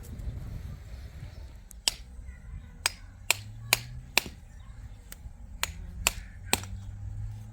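A series of sharp, short clicks or taps, about two or three a second with a pause in the middle, starting about two seconds in over a low rumble.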